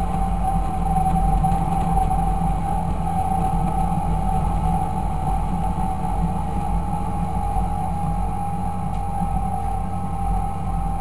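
Fendt Favorit 926 tractor's six-cylinder turbo diesel running steadily at an even speed, with a steady whine sounding above the low engine note.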